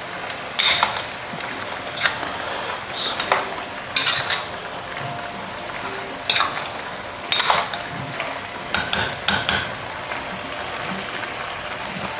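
Plastic spoon stirring chicken pieces in a large metal pot, with irregular scrapes and knocks against the pot every second or two and a quick run of them about nine seconds in, over a steady hiss of the chicken cooking.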